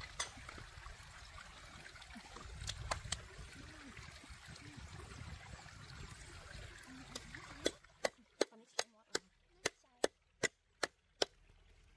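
Water trickling, then the background cuts out and a run of about ten sharp knocks follows, roughly three a second.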